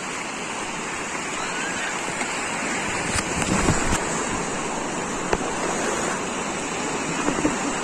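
Sea surf washing steadily onto the beach, a continuous rushing noise, with one faint click about five seconds in.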